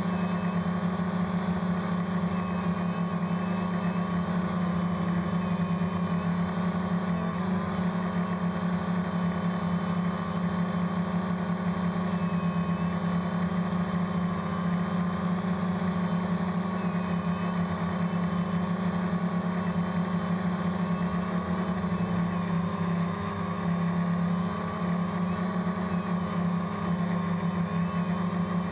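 DJI Phantom quadcopter's electric motors and propellers buzzing steadily, heard up close through the GoPro mounted on the drone: a strong low hum with a fainter whine above it, hardly changing.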